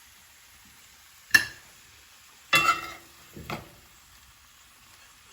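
A utensil tapping and clinking against a dish a few times: a sharp tap about a second in, then a brief ringing clink and a softer knock around the middle.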